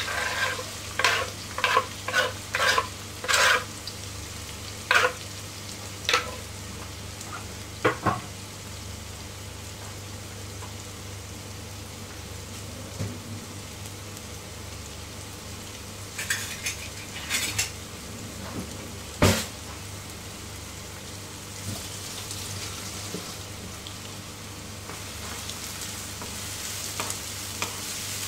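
Chopped onions sizzling steadily in hot oil in a frying pan, with a quick run of sharp taps and knocks in the first few seconds and a few more about two-thirds of the way through. Near the end a wooden spatula stirs the onions and the sizzle swells.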